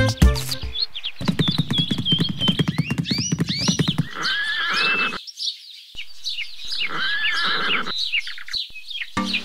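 Horse sound effects: hooves clip-clopping in a quick, even rhythm for about three seconds, then a horse whinnying twice, each call about a second long.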